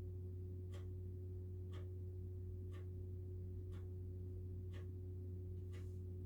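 A steady low hum with a short, sharp tick about once a second.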